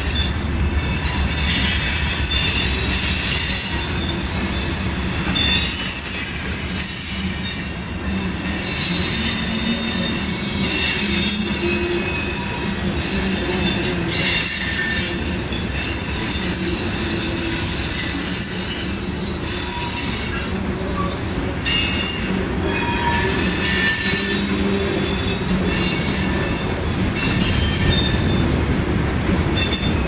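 Freight train of covered hopper cars rolling past at track side: steady rumble of wheels on rail with high-pitched wheel squeals coming and going throughout.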